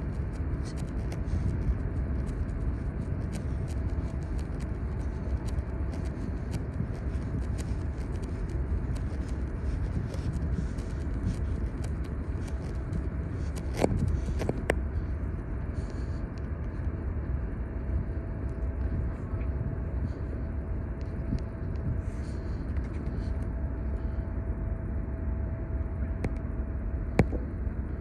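Steady low rumble with a faint constant hum from a large car ferry's machinery carrying across the harbour water. A couple of sharp clicks are heard midway and near the end.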